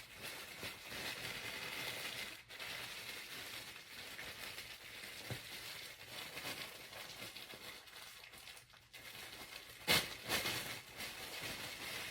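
Packaging crinkling and rustling as a package is opened and unpacked by hand, with a louder crackle near the end.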